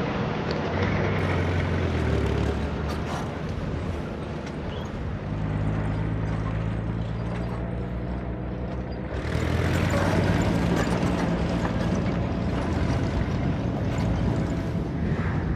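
Motor vehicle engines running steadily as vehicles drive. The engine note changes abruptly a few times, about a second in, around five seconds and around nine seconds.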